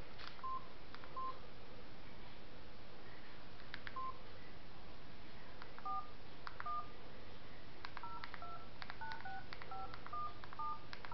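Touch-tone phone keypad dialing a number: a few short single beeps, then from about six seconds in a quick run of about ten short two-tone dialing tones, each with a faint key click.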